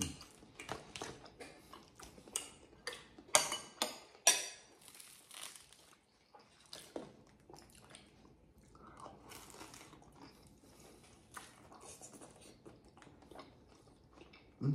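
Crusty Vietnamese baguette (bánh mì), baked crisp, crackling as it is broken and bitten into: a quick run of sharp crunches in the first few seconds, the loudest two a little after the middle of that run. After that come quieter chewing and a few small clicks.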